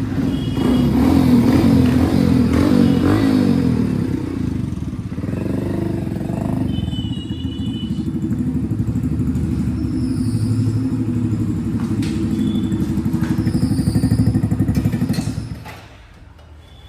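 Modified Hero Splendor's single-cylinder four-stroke engine running through a loud aftermarket RX-style silencer. The revs rise and fall over the first few seconds, then settle into a steady run. The sound drops away sharply near the end.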